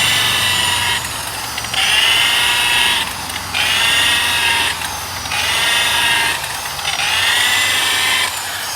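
Variable-speed 7-inch rotary buffer polishing a plastic headlight lens with compound: a steady motor whine that falls back and recovers in pitch about five times, in a regular rhythm of roughly every second and a half to two seconds.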